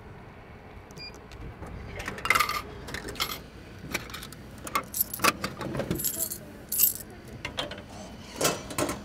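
Irregular clicks and knocks of a hamburger vending machine's pickup flap and a small cardboard burger box as the box is taken out of the delivery slot, starting about two seconds in.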